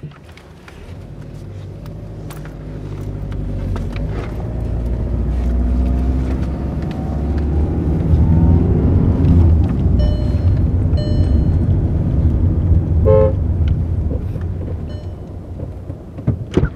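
Car engine accelerating, its pitch climbing over several seconds as it gets louder, then easing off and fading. A few short horn toots sound around the middle.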